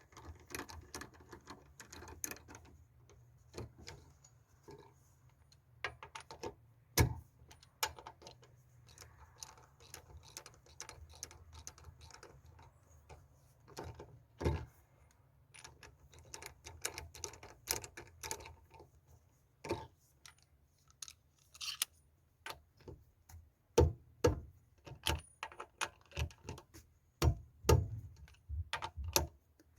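Scattered metallic clicks, clinks and small knocks of hand tools and parts being handled while refitting a VAZ 21099's rear brake drum, with sharper, more frequent knocks near the end.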